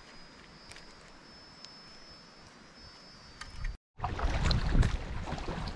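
Faint outdoor stillness with a thin, steady high tone and a few light ticks. After an abrupt cut about four seconds in come louder wind on the microphone and choppy water splashing around a kayak.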